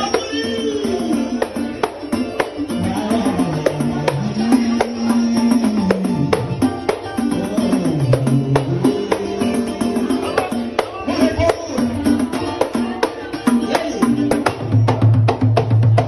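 Pagode (Brazilian samba) band playing, with jingling tambourine-type percussion and drums keeping a busy, steady beat over sliding bass and melody lines.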